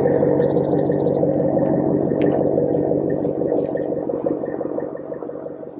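Dodge Ram 1500's 5.7-litre Hemi V8 idling steadily, heard at its twin exhaust tips, growing quieter over the last couple of seconds.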